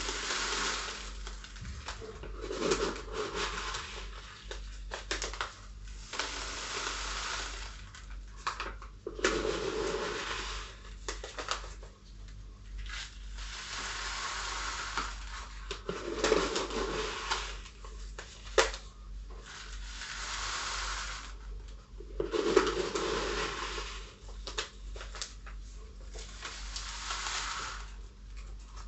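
Seramis and Vulkatec substrate granules poured from a small plastic cup into the neck of a 5-litre plastic bottle, running down in gritty pours of a few seconds each with short breaks between.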